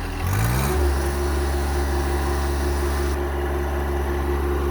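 Diesel tractor engine revving up from idle within the first second, then running steadily at the higher speed with a steady whine above it.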